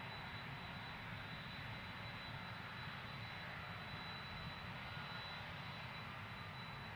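Lufthansa Airbus A320neo's Pratt & Whitney geared turbofan engines running at low taxi thrust as the jet turns onto the runway: a steady high whine over a low rumble.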